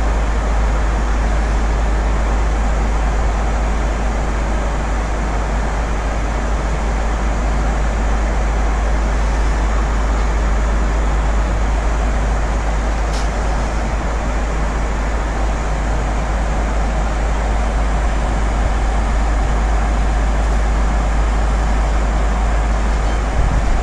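Steady in-flight cabin noise of a Boeing 767-300ER airliner in cruise: an even rush of airflow and engine noise over a constant deep rumble.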